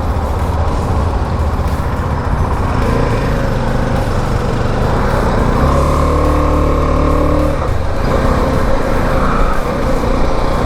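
KTM motorcycle running on the road, with a steady engine and road rumble, freshly serviced and running smoothly. About six seconds in, a steady pitched tone holds for roughly two seconds.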